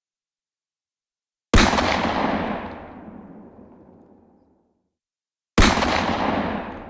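Two single gunshots about four seconds apart, each a sharp crack followed by a long rolling echo that dies away over about three seconds.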